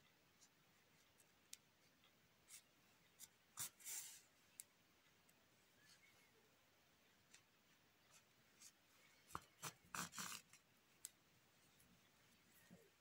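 Mostly near silence, with faint rustling and soft scratching of hands handling a crocheted doll and its yarn, and a few scattered light clicks. Two brief clusters of louder rustling come about four seconds in and around ten seconds in.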